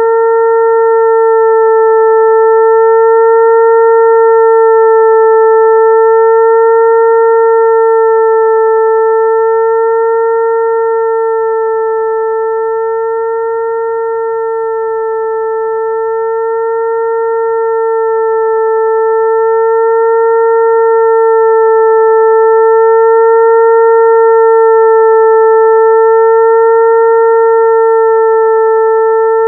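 Electronic mosquito-attracting tone: a steady, mid-pitched hum with a few higher overtones, imitating a mosquito's wingbeat drone. It slowly swells, fades a little midway, and swells again.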